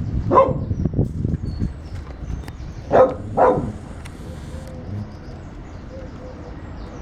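A dog barking: three short barks, one about half a second in and two close together about three seconds in, over low rumbling noise at first.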